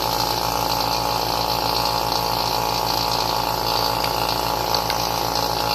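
Two-stage 6 CFM vacuum pump running steadily with its gas ballast valve open: a broad hiss of air drawn in through the ballast over the pump's rhythmic running. The open ballast lets the pump purge the water vapour it is pulling off the wet circuit board.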